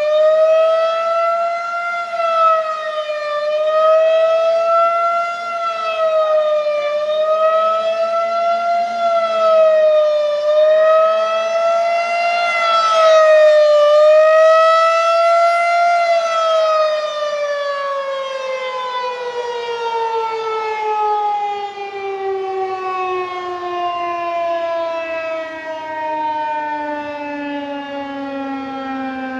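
Federal Signal 2001-130 rotating outdoor warning siren sounding a fast wail, its pitch rising and falling about every two and a half seconds. About halfway through it winds down in one long falling tone as the test signal ends.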